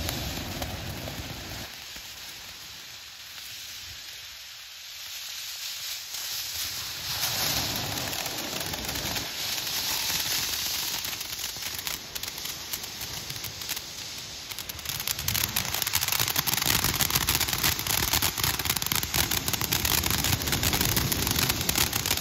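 Cool Breeze fountain firework burning, a steady hissing spray of sparks that grows louder about seven seconds in. Dense crackling joins from about fifteen seconds in.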